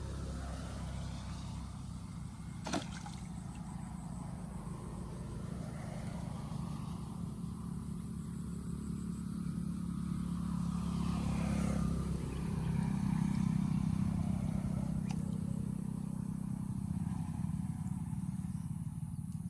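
Steady low engine hum that grows louder and glides in pitch around twelve to fourteen seconds in, as a motor vehicle passes, with one sharp click about three seconds in.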